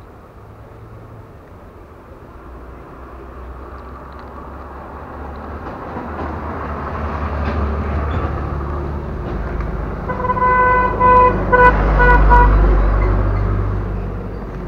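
A vehicle's engine approaching, growing louder over several seconds, with its horn beeping several times in quick succession about two-thirds of the way through, then fading away.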